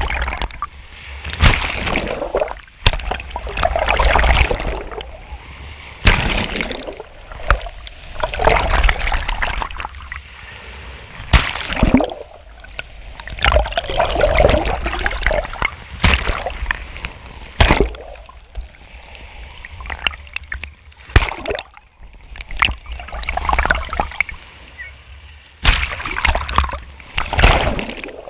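Small sea waves breaking and sloshing in shallow surf, heard from right at the waterline. The water surges every two or three seconds, with sharp splashes among the swells and a low rumble underneath.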